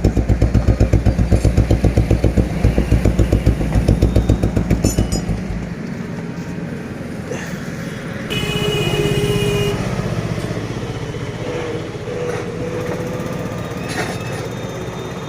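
Royal Enfield Bullet single-cylinder engine running with its characteristic fast, even thump, after its contact-breaker points have been replaced and set. About five and a half seconds in, the thump drops to a quieter, steadier running sound, and a brief high-pitched tone sounds near the middle.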